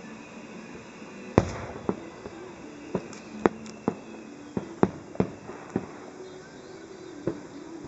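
Fireworks shells bursting in an irregular string of sharp bangs, about ten in all, the loudest a little over a second in.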